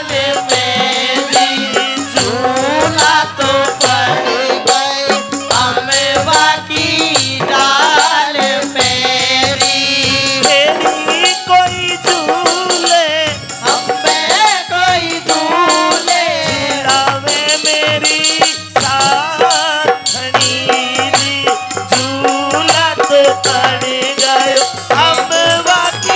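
Live Haryanvi ragni folk music over a PA: harmonium and dholak with rattling percussion keeping a steady beat, and wavering sung melody.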